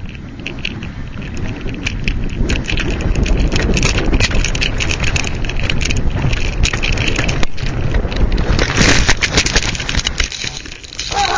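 Dog sled running fast over snow: a continuous rushing scrape with many small knocks and clatters. It grows louder about two seconds in and eases off near the end.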